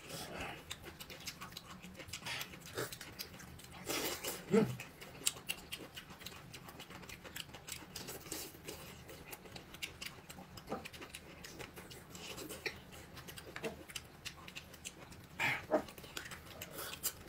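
A dog making small noises a few times, including a short falling whine about four seconds in and another near the end, over light clicking and tapping.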